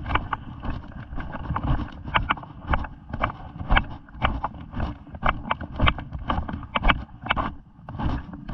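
Footsteps crunching through deep snow at a brisk walk, about two steps a second, over a low rumble of movement on the microphone.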